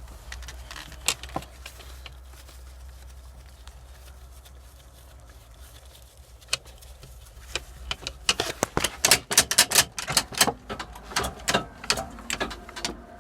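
Hand work at a YuMZ tractor's gearshift as the removed gear lever is refitted: a few scattered metallic clicks and knocks, then from about eight seconds in a fast, dense clatter of light clicks.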